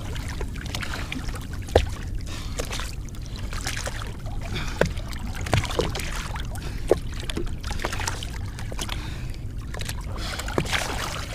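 Water sloshing and dripping, with a few sharp little splashes and plops, as a tarpon is held in the water and released. There is a steady low rumble underneath.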